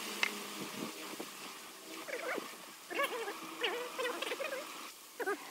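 An animal calling in a run of short, pitched cries that bend up and down, starting about two seconds in, over a steady low hum in the first second.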